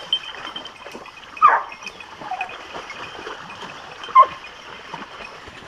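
Scent hounds giving tongue on a wild boar's trail: one long falling howl about one and a half seconds in, then a short yelp about four seconds in.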